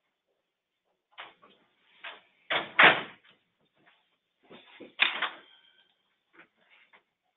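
A few knocks and clattering noises picked up on an open microphone, the two loudest about three and five seconds in, heard through narrow-band web-conference audio.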